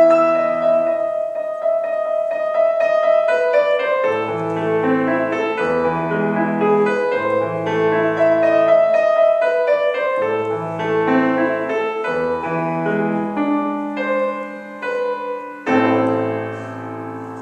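Solo piano playing a classical piece, melody notes over sustained bass notes, closing on a final chord struck near the end and left to ring.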